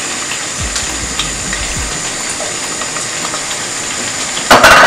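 Diced onions sizzling in hot palm oil in a steel pot, a steady hiss. A short loud clatter near the end.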